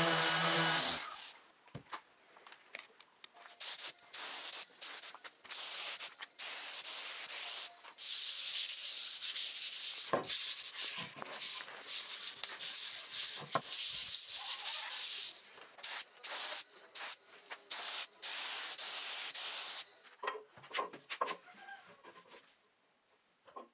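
A random orbital sander runs and stops about a second in. Then a hand rubs along a wooden board in quick back-and-forth strokes, a scratchy hiss that comes in separate strokes, then unbroken for several seconds, then in strokes again; it stops near the end, leaving a few light knocks.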